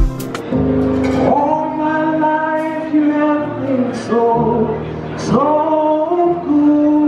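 Slow first-dance song: a solo voice singing long held notes over soft, steady accompaniment.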